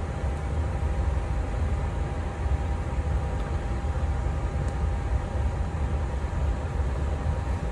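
Steady air rush and hum of an airliner flight deck's air conditioning and equipment cooling fans, with a deep low rumble and a faint steady whine running through it.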